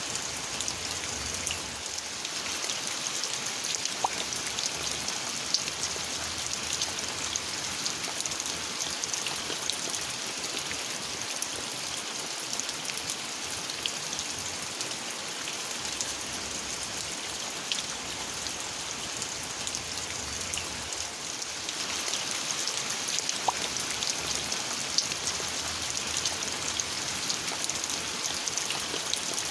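Steady rain falling, with many individual drops ticking on surfaces, getting a little louder about two-thirds of the way through.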